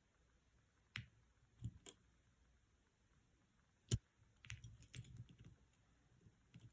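Scattered small clicks and knocks over near silence, the sharpest about four seconds in, followed by a quick cluster of lighter clicks.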